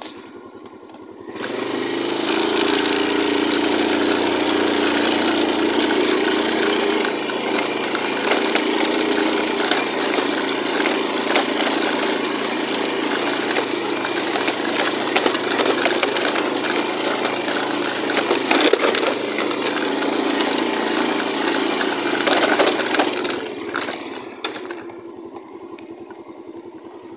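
A small motorbike engine running while the bike rides over a rough, stony dirt track, mixed with rattling and crunching from the bike and its tyres on the loose stones. It starts about a second and a half in and dies down near the end.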